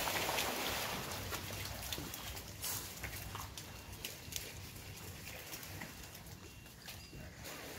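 Ambient sound from a crowded pen of farmed crocodiles: animal noises over a steady hiss, with scattered clicks and knocks, slowly getting quieter.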